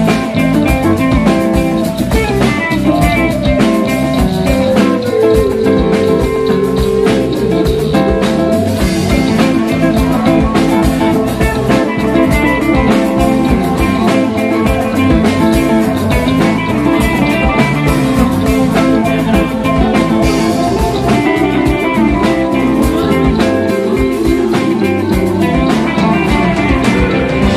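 Live jam-band instrumental: electric guitar lead over bass guitar and drum kit, with a falling bent guitar note about five seconds in.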